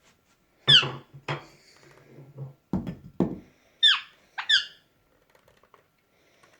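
Indian ringneck parakeet giving short, harsh squawks that drop in pitch, four in two pairs. A couple of low thumps fall between the pairs.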